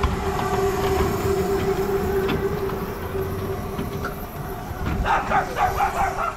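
Miniature railway train, a small locomotive with open passenger carriages, running past on the track with a steady rumble. A held, steady tone sounds over the first few seconds and then fades.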